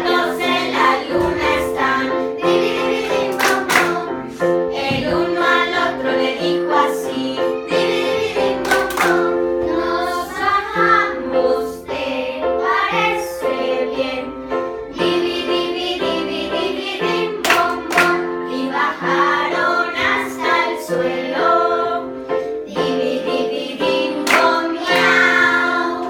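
A group of children singing a song together over sustained electronic keyboard chords.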